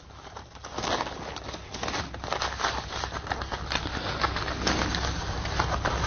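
Sheets of paper rustling and crinkling as they are leafed through and handled, getting louder toward the end.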